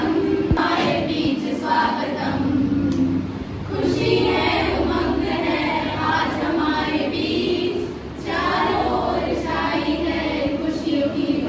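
A group of voices singing together in sustained phrases, with short breaks between them.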